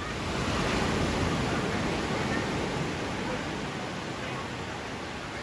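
A steady rushing noise that swells about a second in and then slowly eases off.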